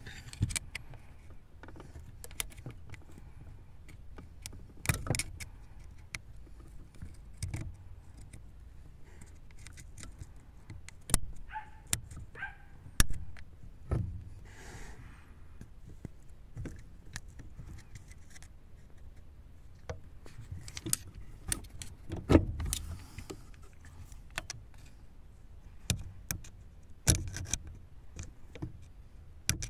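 A screwdriver working at a screw on a metal bracket, making irregular sharp metallic clicks, taps and scrapes, over a steady low rumble.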